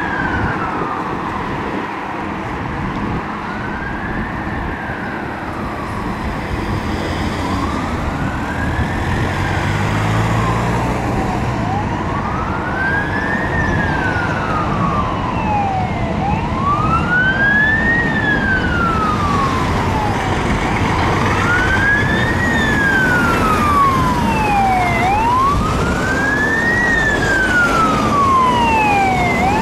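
Wail siren of a Scania Emergency One Scorpion fire engine, rising and falling slowly about every four and a half seconds and growing louder as the appliance approaches, over steady road traffic noise.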